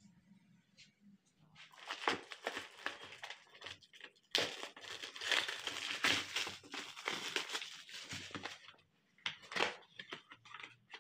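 Plastic shrink-wrap crinkling and tearing as it is pulled off a cardboard box for several seconds, louder partway through. Near the end come a few short, sharp sounds as the cardboard lid is opened.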